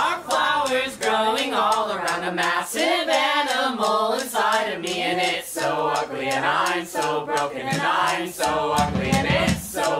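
Background music carried by singing voices, with several voices sung together and little instrumental backing.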